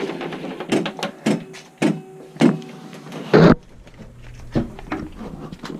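A string of handling clicks and knocks, the loudest about three and a half seconds in, as the Gottlieb woodrail pinball machine's power cord is pulled and unplugged.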